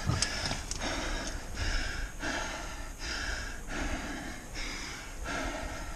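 A person breathing hard and fast, each breath a short rush of air close to the microphone, while crawling into a collapsed mine passage.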